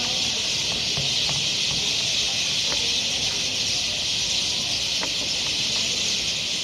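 A huge flock of birds chattering all at once, a dense, steady high-pitched wash of calls in which no single call stands out.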